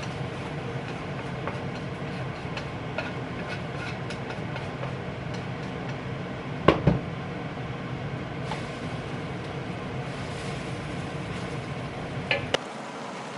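Cooking at a stovetop: a steady low hum under scattered light clicks of utensils against a pan, with one sharp clatter about seven seconds in and a couple of smaller knocks near the end. The hum cuts out abruptly just before the end.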